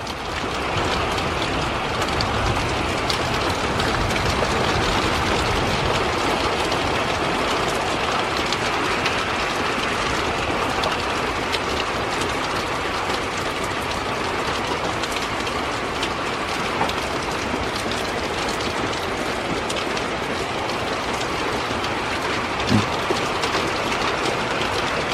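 Heavy rain pouring down steadily in a severe thunderstorm, a dense even hiss that swells in the first second and then holds.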